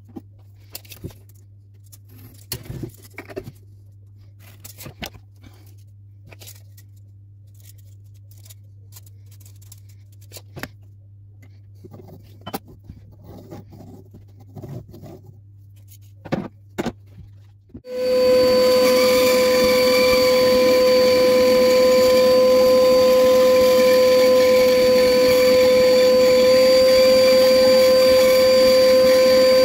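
Light scattered taps and scrapes of a green ash bowl blank being handled and marked out with dividers, then a benchtop band saw switches on a little past halfway and runs with a loud steady hum while the blank is lined up to cut out a round bowl blank.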